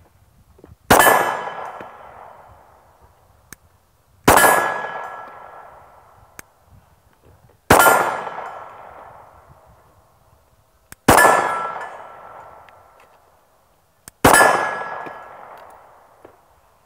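Five slow, evenly spaced 9mm pistol shots from a Glock 48, about three and a half seconds apart, each followed by a ringing clang from the steel target that dies away over a second or two.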